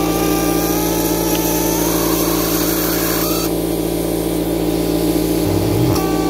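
A handheld power scribe buzzing steadily as its tip chips rock away from an ammonite fossil; the upper part of the buzz drops away about halfway through.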